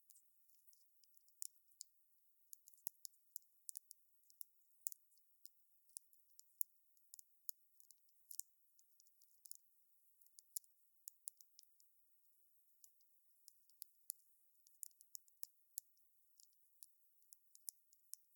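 Wood fire crackling: quiet, irregular sharp snaps and pops, several a second, with no lower rumble of flame beneath them.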